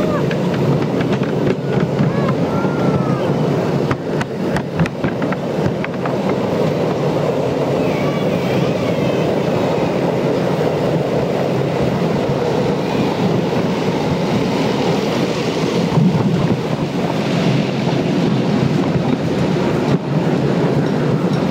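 Miniature railway passenger train running along the track: a steady rumble of its wheels on the rails, with a run of sharp clicks over rail joints about four to five seconds in.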